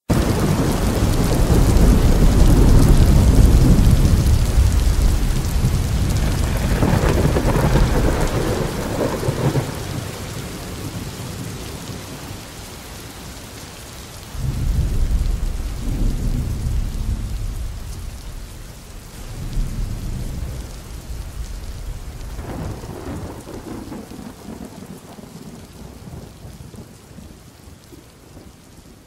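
Steady rain with long rolls of thunder. The loudest and longest rumble comes in the first several seconds, another starts suddenly about halfway through, and more follow before the storm fades toward the end.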